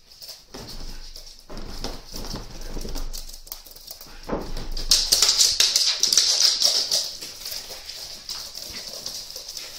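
Husky puppies' claws clicking and scrabbling on a wooden floor as they run and play, a rapid irregular patter that gets louder about halfway through.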